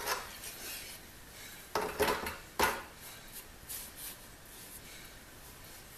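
Large old steel hardy-mount tin shears being handled and opened, metal clinking and scraping, with a cluster of sharp clanks about two seconds in and one more just after.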